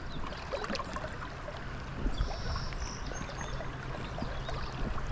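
Shallow river water running and splashing, with scattered small splashes and knocks from wading in the current.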